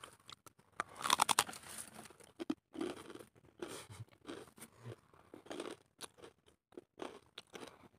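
Irregular crunching and crackling close to the microphone, with a quick run of sharp clicks about a second in.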